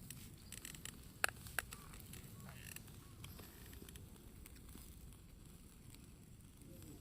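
Scattered crackles and clicks from a charcoal cooking fire, a sharper pair of clicks about a second and a half in, over a low steady rumble.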